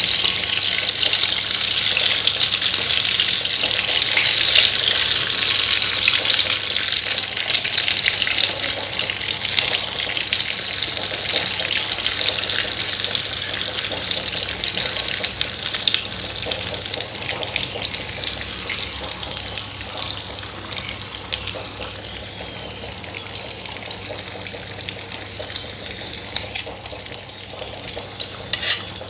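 Egg-coated meatballs deep-frying in hot oil in a wok: a steady sizzle that slowly dies down as the batter sets. A few sharp clicks near the end.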